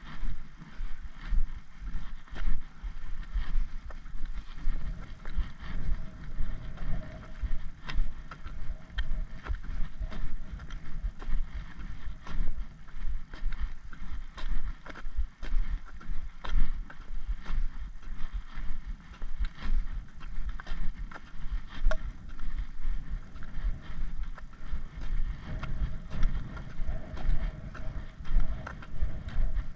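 Footsteps walking steadily on a tarmac lane, a regular pulse with light clicks, over wind rumbling on the microphone.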